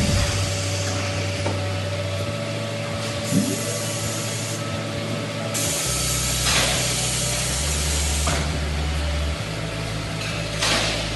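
Factory machinery running: a steady low hum under a hiss, the mix shifting every few seconds.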